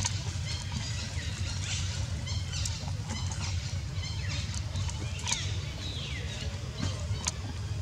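High-pitched animal chirps and squeaks, several a second and scattered throughout, with one longer falling squeal about five and a half seconds in, over a steady low rumble.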